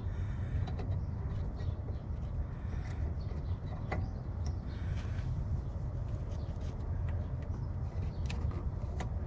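A steady low rumble, with a few faint clicks and taps as a headlight bulb is handled and plugged into its connector.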